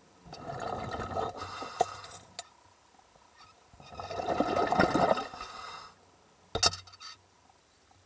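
Water bubbling and gurgling around an underwater camera, in two bursts of about two seconds each, followed by one sharp knock.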